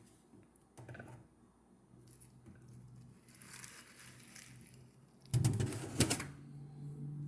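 Light clicks and rustles of cereal packaging being handled, with a louder cluster of sharp clicks about five seconds in, over a faint steady low hum.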